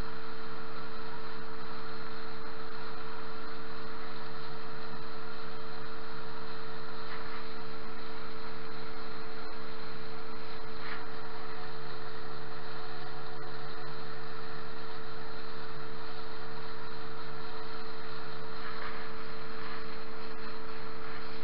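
Tohatsu outboard motor running at a steady pitch, driving the boat along, with water rushing past the hull.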